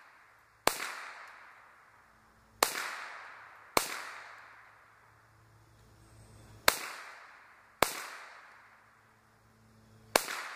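GSG 522 semi-automatic .22 LR rifle firing six single shots at uneven intervals, two pairs of them about a second apart. Each shot is a sharp crack followed by an echo that dies away over about a second.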